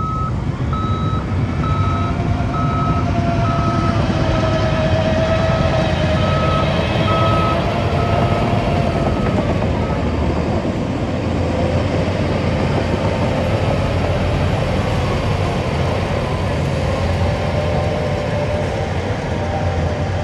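Reversing alarm on a heavy earthmoving machine beeping steadily about once a second, over its diesel engine running under load. The beeping fades out about halfway through while the engine keeps running with a wavering whine.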